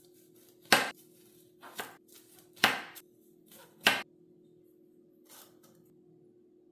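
A knife chopping calamansi on a cutting board: four sharp knocks roughly a second apart, with lighter taps between them, stopping after about four seconds.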